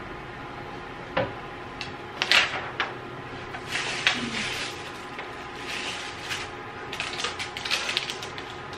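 Handling noise from assembling flat-pack furniture: a large paper instruction sheet rustling as it is turned, with sharp clicks and knocks from small parts and a plastic screwdriver-bit case.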